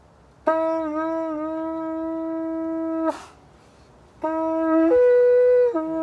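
Pūtātara, a Māori conch-shell trumpet with a wooden mouthpiece, blown in two long notes with a breath between. The first note is steady. The second steps up briefly to a higher note partway through, then drops back to the first pitch.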